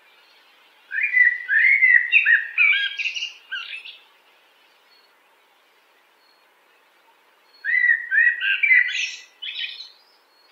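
Common blackbird singing two phrases several seconds apart. Each is a low, fluty warble that ends in a higher, scratchy twitter.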